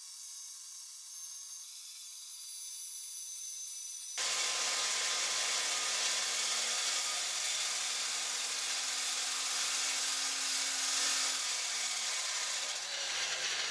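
Circular saw converted from a chop saw, its blade cutting through a plywood tabletop panel with a steady whine. The sound is thin and high at first, then abruptly becomes louder and fuller about four seconds in and keeps running.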